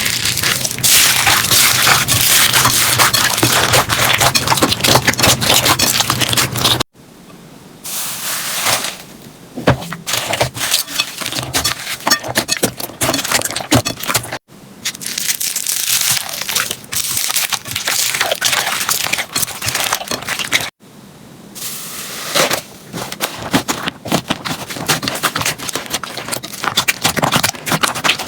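Slime being squished and worked, with a dense run of crackling and popping clicks. It breaks off abruptly three times as one short clip cuts to the next.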